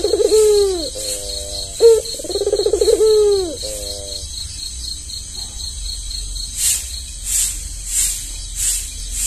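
Albino puter (Barbary dove) cooing: one coo phrase ends about half a second in, and a second full phrase of a short note and a long rolling coo follows about two seconds in. A steady fast high ticking runs underneath, and in the second half evenly spaced rattling pulses come about one and a half times a second.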